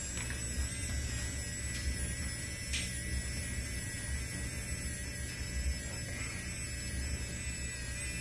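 Pika 3D Super 3D printing pen's small filament-feed motor running steadily while it extrudes plastic: an even, faint high whine over a low hum.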